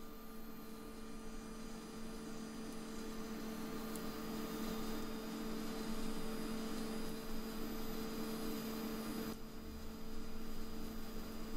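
TIG welding arc running steadily with a hiss over an electrical hum, as filler rod is fed in to build up a weld. The hiss thins about nine seconds in.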